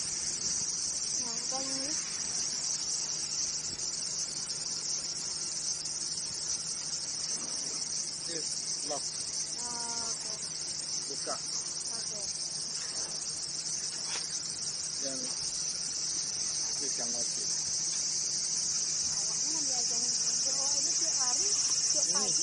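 Steady, high-pitched insect chorus: a continuous shrill drone that grows a little louder near the end.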